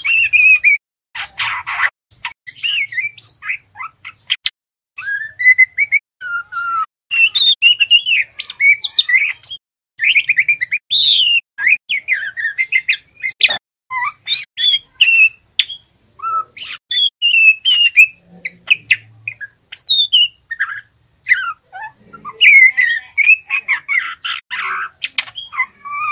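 Juvenile male white-rumped shama (murai batu trotol) practising its song: a rambling run of short chirps and whistled notes that slide up and down, with brief pauses. This is the twittering 'ngeriwik' subsong of a young bird still learning to sing.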